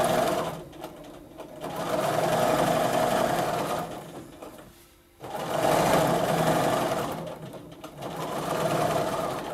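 Bernina domestic sewing machine free-motion stitching under its stitch regulator, running in four stretches of one to two seconds, speeding up and slowing down, with short stops between them.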